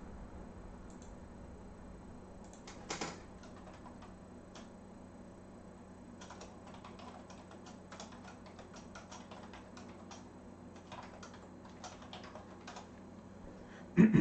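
Computer keyboard typing: a quick run of key clicks, with a louder click cluster about three seconds in and a low thump near the end.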